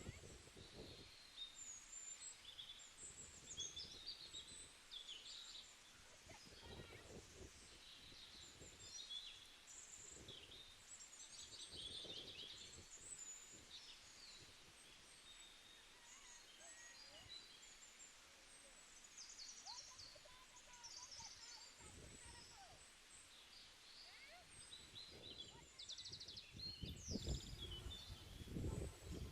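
Faint birdsong: many small birds chirping in short calls throughout. Occasional low rustles or knocks, busier near the end.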